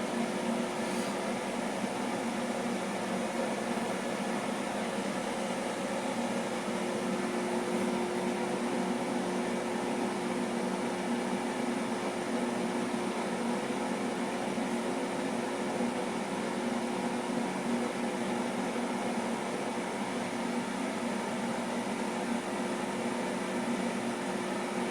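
Cooling fans of ASIC cryptocurrency miners running steadily: an even rush of air with a constant hum underneath.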